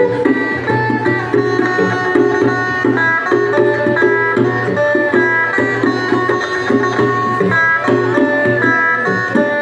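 Acoustic guitar picking a melody of single notes over a steady rhythm played on a set of conga drums.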